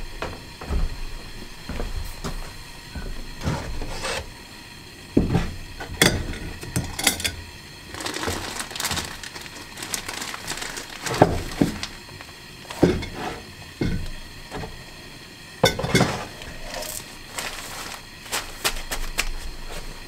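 Ceramic coffee mugs and other kitchen things being handled on a wooden counter: a string of clinks and knocks, with a crinkling plastic bag, over a steady hiss.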